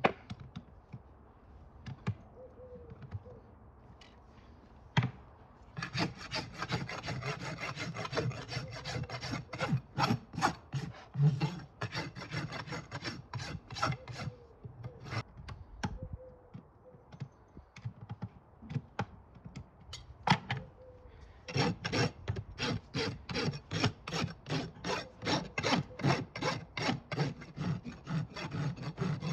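Farrier's rasp being drawn back and forth across a horse's hoof wall in quick rasping strokes, dressing the outside of the hoof over the clinched nails after shoeing. A few sharp clicks come first, then two long runs of rasping with a pause between them.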